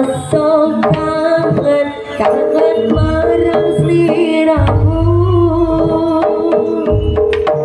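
Live Javanese jaranan accompaniment music for a barongan dance: hand-drum (kendang) patterns over a keyboard organ melody with held notes, and a deep low tone swelling about halfway through.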